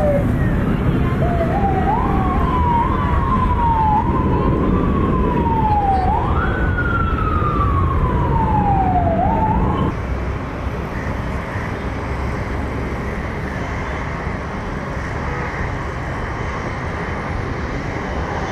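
A siren wailing in uneven sweeps, each rising quickly and falling slowly, over the low steady roar of an airliner's jet engines. About ten seconds in the siren cuts off and the roar drops to a quieter, steady jet engine noise from an Airbus A330 on the runway.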